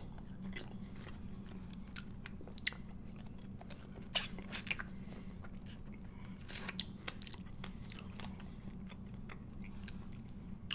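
Close-miked chewing and biting of fried chicken: crisp breading crunching, with wet mouth clicks and louder bites about four and seven seconds in. A steady low hum runs underneath.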